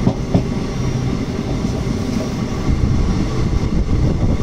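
Passenger train running along the track: a steady rumble of the coach's wheels on the rails, with two short knocks near the start.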